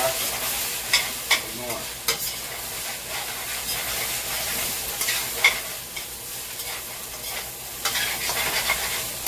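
Rice sizzling as it fries in hot oil with soy sauce, stirred in the pan. A utensil scrapes and clacks against the pan with a scattering of sharp knocks, the strongest about a second in and about five and a half seconds in.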